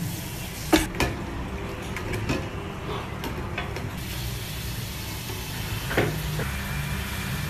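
A metal ladle stirring a pot of bubbling gravy with crabs and prawns, knocking against the pot a few times, over a steady low rumble.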